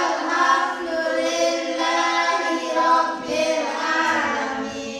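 A group of children reciting a closing prayer together in unison, in a sing-song chant with long held notes.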